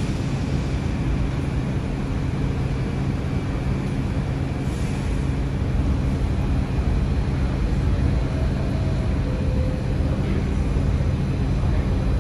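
R142 subway train on the 3 line creeping toward the platform, a steady low rumble and hum filling the underground station, with a short hiss about five seconds in.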